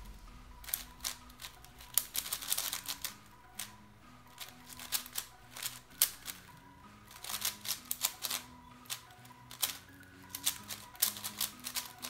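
Rapid plastic clicking and clacking of a QiYi Wushuang M 5x5 speedcube being turned fast in quick spurts, with brief pauses between the flurries.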